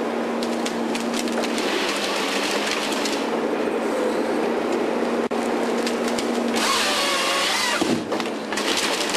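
Volvo tracked harvester with a Lako harvesting head working a tree: the machine's engine and hydraulics run steadily under many sharp cracks of branches being snapped off. About seven seconds in, a wavering whine dips and rises as the head's chain saw cuts through the stem.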